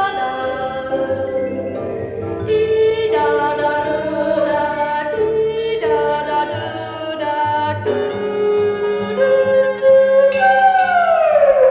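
Music: sustained melodic notes over a low accompaniment, ending in a long falling slide in pitch near the end.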